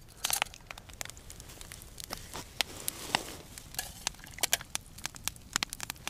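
Wood fire crackling, with irregular sharp pops and snaps.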